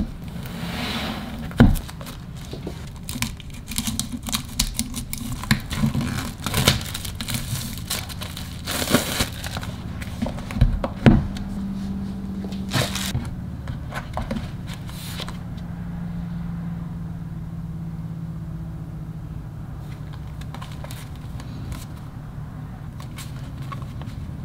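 Plastic shrink-wrap being torn and crinkled off a photobook, with sharp crackles and rustles. The crinkling dies away about 15 seconds in, leaving a steady low hum.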